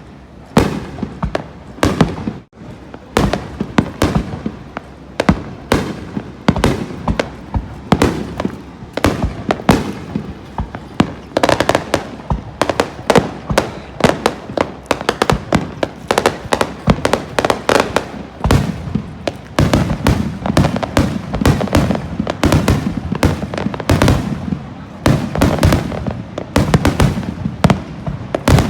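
Aerial fireworks bursting in rapid succession, a dense barrage of sharp bangs and cracks several times a second, thickening from about eleven seconds in.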